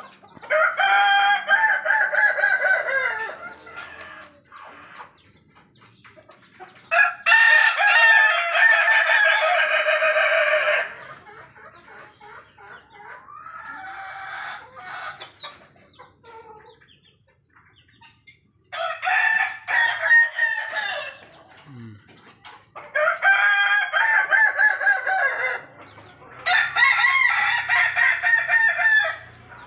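Roosters crowing one after another: six long crows, one of them fainter, the longest lasting about four seconds.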